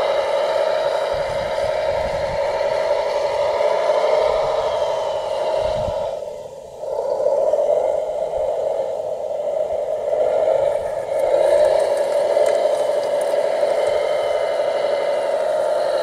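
Steady whine of a radio-controlled Volvo wheel loader model's motors and hydraulics as it works a stone pile, dropping away briefly about six seconds in.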